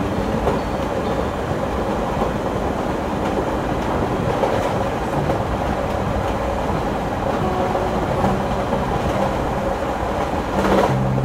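A passenger train running at speed, heard from inside the carriage as a steady rumbling rail noise.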